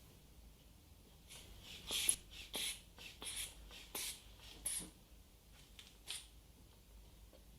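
Hands handling fabric and equipment during a blood-pressure check: a run of seven or eight short, irregular rustles and scrapes over about five seconds, the loudest about two seconds in.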